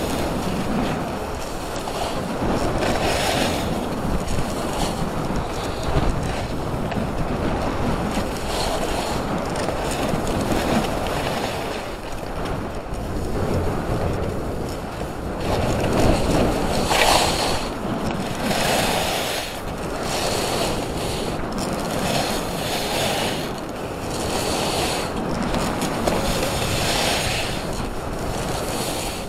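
Wind rushing over an action camera's microphone during a downhill ski run, mixed with skis hissing and scraping over snow. The rush swells and eases every second or two, the hiss brightening with each turn.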